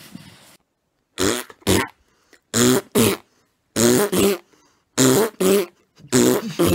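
Short two-part vocal sounds, the pair repeated five times at an even pace about a second apart, with silence between.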